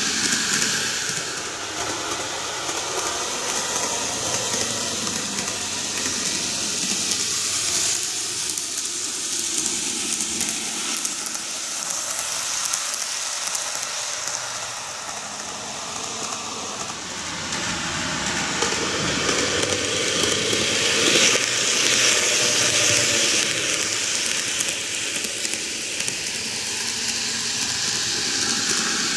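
N-gauge model of a Kintetsu 12410-series electric train running on superelevated plastic-bed track: a steady whirring, hissing rattle of the motor and wheels on the rails that eases off and swells again as the train comes round the curve.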